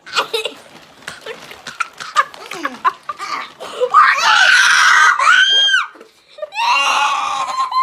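Girls screaming and laughing. Choppy laughter and shrieks give way to two long high-pitched screams, about four and about seven seconds in, each dropping in pitch as it ends.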